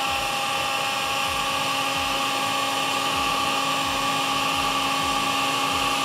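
A 1300-watt heat gun running on a slow heat setting: a steady whine with several constant tones over the hiss of blowing air. The gun is heating a rigid liquid-cooling tube held over its nozzle to soften it for bending.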